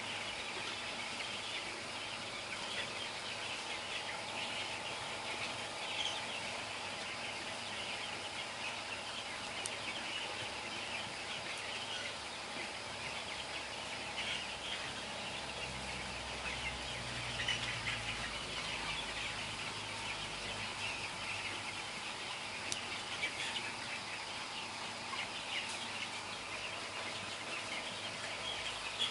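A flock of 15-day-old broiler chickens peeping and calling together, a dense, continuous chatter of many overlapping small calls.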